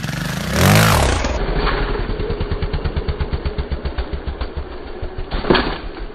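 Trials motorcycle's single-cylinder engine blipped in a quick rev that falls away about a second in, then running on at a low, pulsing idle. One sharp knock near the end.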